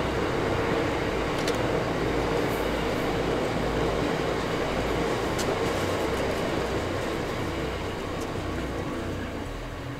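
Loaded bitumen tank wagons of a freight train rolling past on the rails: a steady rumble with a few sharp clicks, easing off slightly near the end.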